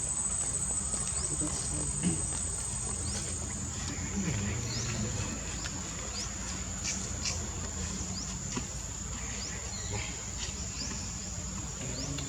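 Steady high-pitched insect drone, with many short, high rising chirps scattered over it and a low rumble underneath.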